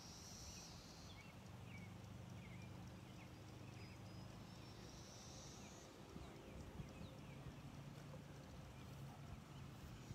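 Faint outdoor ambience: a low steady hum with scattered distant bird chirps and two short, high, buzzy trills, one near the start and one around the middle.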